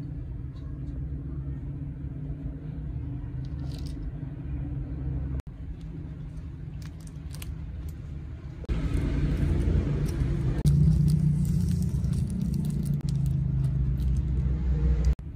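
Small crinkles and clicks from a paper-foil soup powder sachet being handled, torn open and tipped into a plastic instant noodle cup, over a steady low rumble that gets louder a little past halfway.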